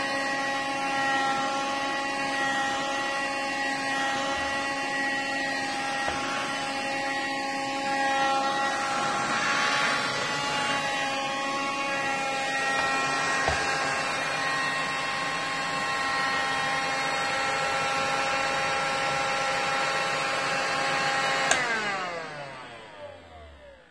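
Rowenta Extenso Cyclonic handheld vacuum cleaner running with a steady motor whine, with a brief louder rush of air about ten seconds in. Near the end it is switched off and the motor winds down, its whine falling in pitch as it fades out.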